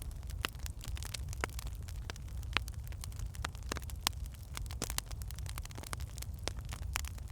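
Firewood burning in a fireplace, crackling with irregular sharp pops and snaps, a few each second, over a steady low rumble.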